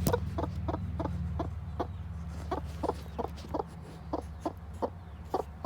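Broody hen clucking in a steady run of short, evenly spaced clucks, about three a second, over a steady low hum.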